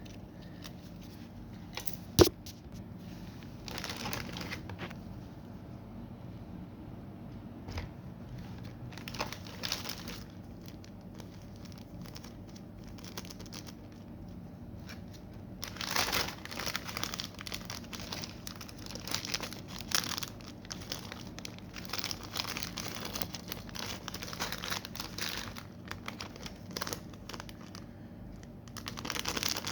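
Resin art kit packaging crinkling and rustling by hand in short bursts, busiest through the second half. A single sharp click about two seconds in is the loudest sound.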